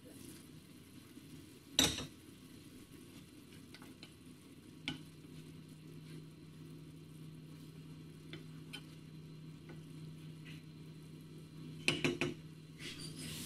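A glass pan lid is lifted off and set down with a clack about two seconds in. Then a spatula stirs thick risotto rice in a nonstick frying pan, with light scraping and soft sizzling, and a few quick taps against the pan near the end.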